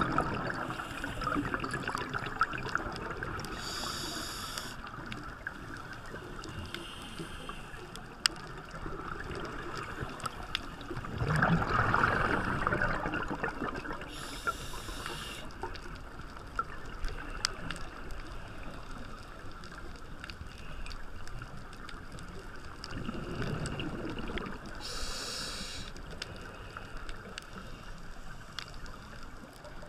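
Scuba diver's regulator breathing, heard underwater through a GoPro housing. There is a short, high inhale hiss about every ten seconds, three times, and a louder rush of exhaled bubbles just before the second and third hisses. Under it runs a steady, muffled wash with faint crackling.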